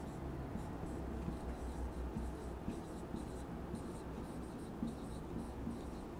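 Marker pen writing on a whiteboard: a quick, irregular run of short, faint strokes as a line of words is written, over a low steady hum.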